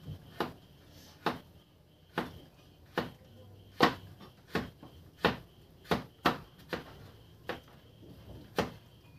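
Kitchen knives chopping carrots and green vegetables on plastic cutting boards: about a dozen sharp knocks at an uneven pace, roughly one a second.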